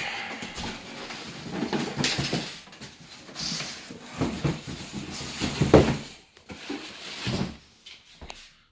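Cardboard box being opened and unpacked, with rustling and scraping of cardboard and several irregular knocks as the metal jack stands inside are handled.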